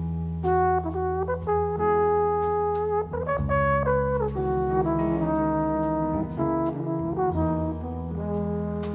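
Live jazz: a trombone playing a solo melody, sliding between some notes, backed by piano, electric bass guitar and drums with light cymbal strokes.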